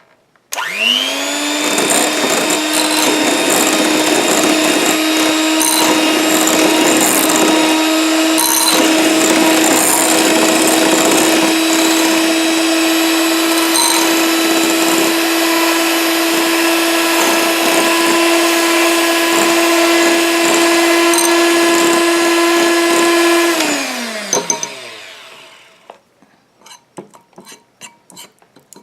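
Electric hand whisk beating a homemade oil and shea butter conditioner mixture: the motor spins up about half a second in, runs as a steady whine for over twenty seconds, then winds down and stops. A few light clinks follow near the end.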